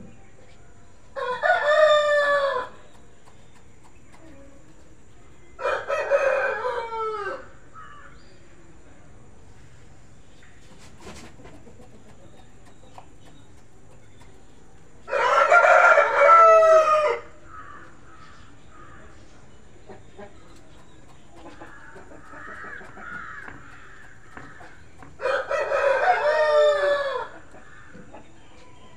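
A rooster crowing four times, each crow about two seconds long and spaced several seconds apart, with faint softer calls between the third and fourth crows.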